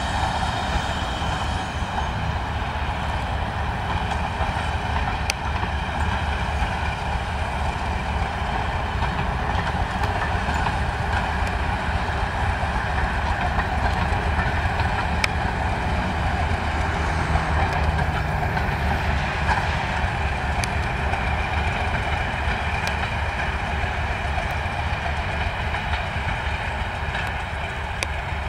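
Class 205 'Thumper' diesel-electric multiple unit passing, its English Electric four-cylinder diesel engine running with a steady low throb under the noise of the train on the rails. A few single clicks come several seconds apart.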